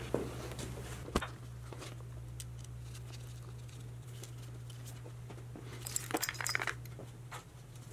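Faint handling noises of wire ring terminals being fitted onto a winch solenoid's terminal stud by gloved hands: a single click about a second in, then a short run of clicks and rustling around six seconds in. A steady low hum sits underneath.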